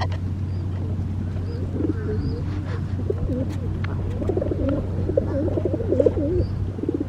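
Pigeon cooing, a run of low wavering coos starting about two seconds in and repeating to the end, over a steady low hum.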